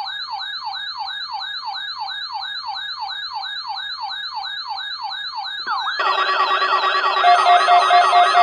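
Weather alert radio's alarm sounding: a siren-like warble that sweeps down from high to low about three times a second, set off by a Required Weekly Test. About six seconds in, further steady tones and a pulsing beep join it and it gets louder.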